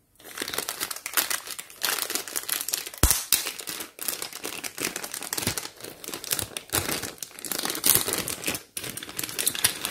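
Thin clear plastic bag crinkling as hands pull it open and rustle small plastic toy pieces out of it, with sharp crackles throughout.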